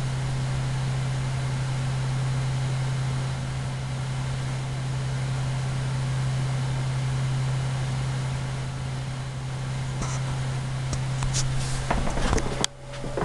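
Oscilloscope music, synthesised stereo audio made to draw pictures on a scope in XY mode: a steady low buzzing tone over a hissy wash. Near the end there are a few clicks and rustles, and then the sound drops off suddenly.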